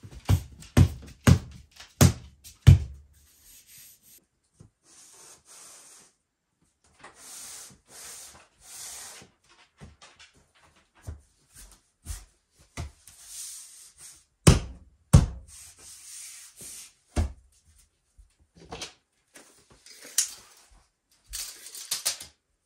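Wood-look floor planks being laid by hand: a quick run of sharp knocks as planks are set into place, planks scraping and rubbing as they slide over the floor, and two loud knocks about halfway through.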